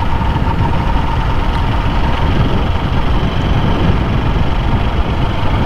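Motorcycle running on the road while being ridden, with a steady loud rush of engine and wind noise.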